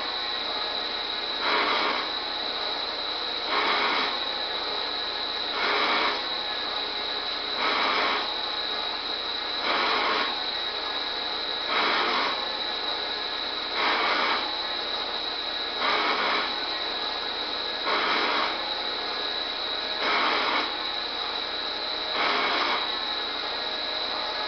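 Schaublin CNC lathe running, a steady high whine under a louder burst of machining noise that comes back about every two seconds, each burst lasting about half a second.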